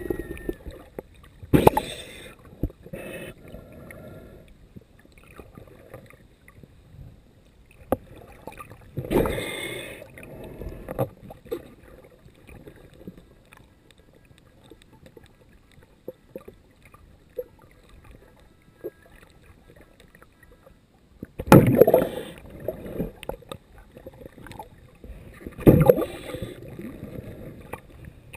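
Underwater sound as picked up by a submerged camera: a faint crackling and ticking background, broken by a few loud rushing water surges about two seconds in, near ten seconds, and twice more near the end.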